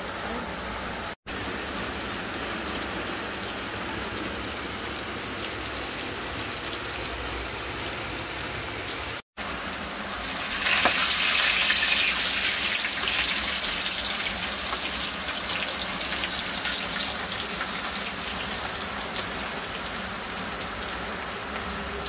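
Anchovies frying in hot oil in a wok: a steady, rain-like sizzle. About ten and a half seconds in the sizzle grows louder and brighter, then slowly eases off.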